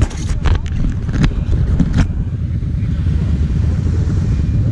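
A quad (ATV) engine running steadily. In the first two seconds there are several sharp knocks and clicks as a gloved hand handles the camera.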